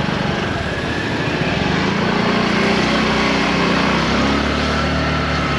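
Small motor scooter engine running while riding along a street, its pitch rising a little about two seconds in, over steady road and wind noise.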